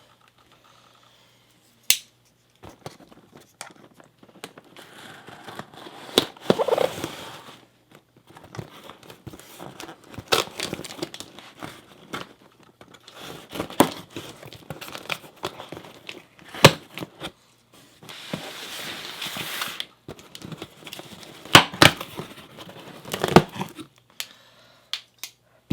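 A cardboard shipping box being opened and its packing material crinkled and rustled by hand. Irregular sharp knocks and tearing run through it, with a longer stretch of rustling near the end.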